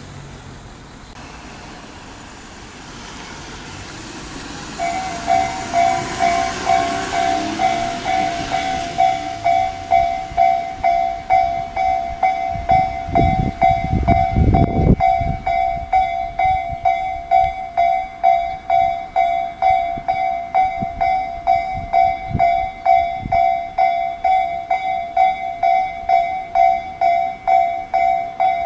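Japanese level-crossing alarm with the Tobu-type electronic bell ('Tobu sound C') starting about five seconds in and ringing on as a steady repeating two-tone ding, a little under two strokes a second. Before it starts, a rising rush of passing traffic. Midway through, a short burst of low rumbling comes under the bell.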